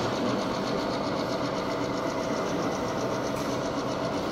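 Model diesel locomotive running on a layout's track: a steady hum with a fast, even ticking.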